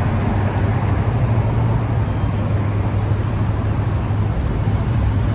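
Steady low hum and rumble of road traffic, with no single vehicle standing out.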